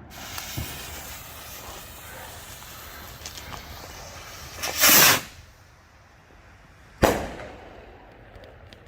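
Consumer firework rocket: the fuse hisses steadily for about four and a half seconds, the rocket launches with a loud rushing whoosh about five seconds in, and it bursts overhead with a sharp bang about two seconds later, followed by a fading echo and a few faint crackles.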